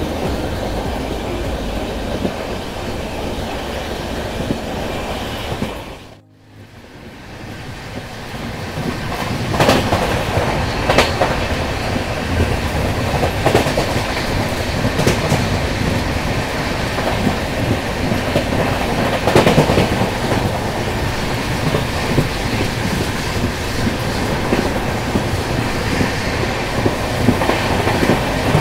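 Express passenger train running at speed through a junction, its wheels clattering over rail joints and points with sharper clanks every few seconds. The sound drops out briefly about six seconds in and fades back up.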